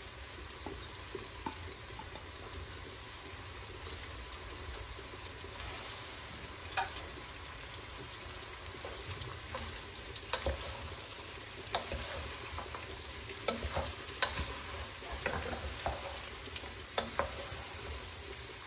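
Chopped leeks, carrots and chicken sizzling in butter and olive oil in a pot, with a steady frying hiss. A utensil clinks and scrapes against the pot as the vegetables are stirred, the clinks coming more often in the second half.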